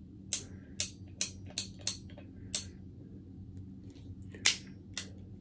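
Ruger New Model Blackhawk single-action revolver's cylinder turned by hand with the loading gate open, clicking about six times as each chamber indexes round to show it is empty. Two more sharp clicks follow about half a second apart near the end, over a faint steady hum.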